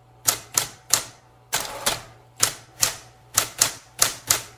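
Typewriter keys striking one after another, about eleven sharp clacks at an uneven pace, over a faint steady low hum.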